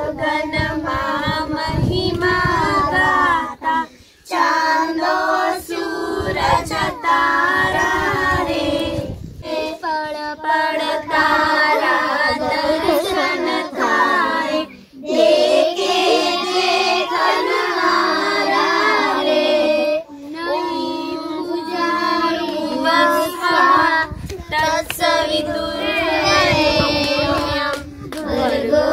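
A child's voice singing a song over music.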